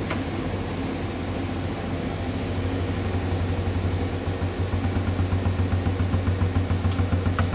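Miyano BNE-34S2 twin-turret CNC lathe running with coolant spraying: a steady low hum with hiss above it, which from about three seconds in takes on an even pulsing of about five beats a second.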